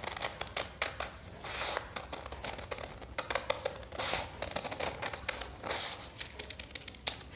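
Large scissors cutting through folded paper along a curve: a run of short snips with the blades clicking, and a few longer papery rustles as the sheet is turned.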